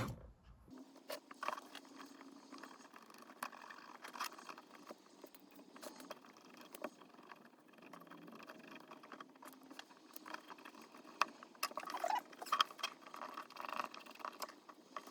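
Faint scratching and irregular small clicks of a model locomotive's blackened commutator being scrubbed clean by hand, busiest near the end, over a faint steady hum.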